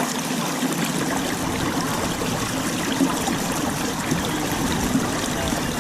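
Steady rush of flowing, splashing water.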